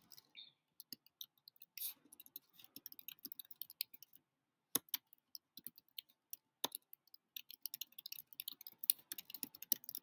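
Typing on a computer keyboard: quick runs of soft key clicks, broken by a brief pause a little before the middle, with a couple of louder single clicks.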